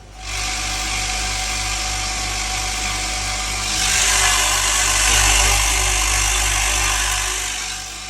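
Vibratory bowl feeder running with a steady hum, screws rattling around inside the bowl. It grows louder about four seconds in, then dies away near the end as the feeder is stopped.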